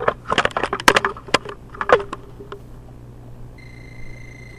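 A quick run of clicks and knocks, then about three and a half seconds in a non-contact voltage tester starts tweeting with a steady high-pitched tone. The tone is its alarm, signalling that it senses live voltage.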